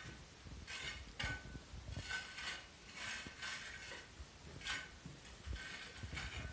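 Metal hand tool scraping along the mortar joints of a rubble-stone wall during repointing, in irregular short scratchy strokes about one or two a second, some with a thin squeak.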